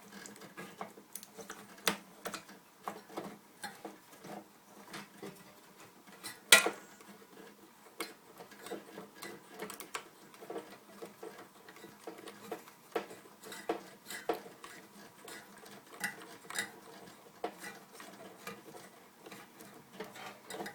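A replacement microwave light bulb being screwed into its lamp socket by hand: irregular small clicks and scrapes of the bulb and the plastic housing, with one sharper click about six and a half seconds in.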